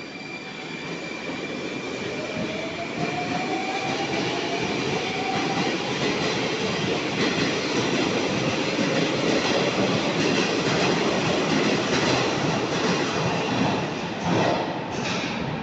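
Metro train running through the station, its wheels and motors getting louder, with a whine rising in pitch over the first several seconds. A couple of sharp clacks come near the end.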